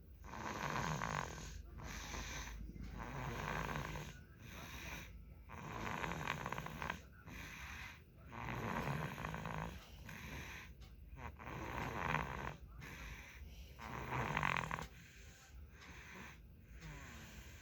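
Young child snoring in sleep, one rough snore after another with short pauses between breaths.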